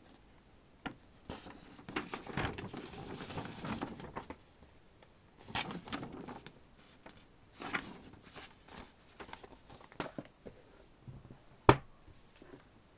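Paper rustling and crinkling as a large folded lyrics poster is unfolded and handled, in several spells. One sharp knock near the end is the loudest sound.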